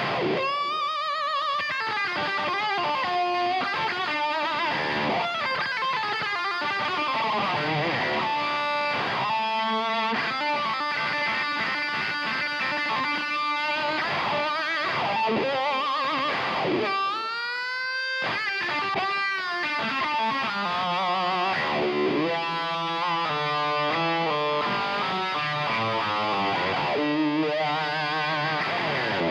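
Overdriven electric guitar played through a Line 6 Helix preset modelled on a Brit Plexi Bright amp, with a wah pedal sweeping the tone up and down, a lead boost and a big-room reverb.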